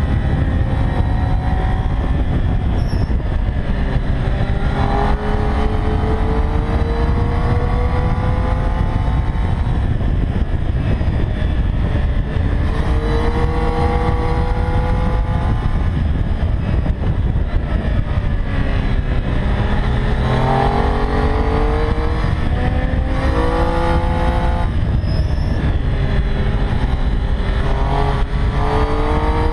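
Triumph Street Triple R's 675 cc inline three-cylinder engine under way at speed, its note climbing in several runs and dropping back between them as it pulls through the gears and rolls off for bends. Heavy wind rush on the bike-mounted camera runs underneath.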